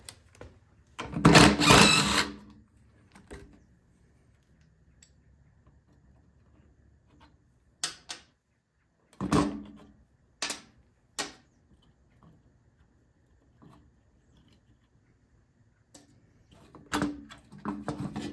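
Plastic and metal parts of a Briggs & Stratton Q6500 generator's recoil starter pulley and spring assembly being handled and pulled apart, making clatter and knocks. There is a longer rattling clatter about a second in, then a few short separate knocks, and another brief clatter near the end.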